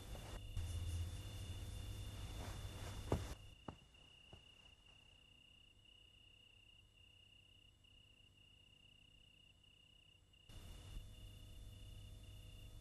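A cricket chirping steadily in an even pulsed rhythm, about two chirps a second. There is a sharp click about three seconds in, followed by a few fainter ticks.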